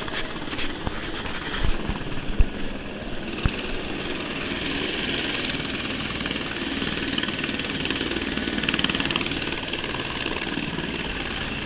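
Helicopter turbine and rotor noise, steady. A few sharp thumps come in the first few seconds.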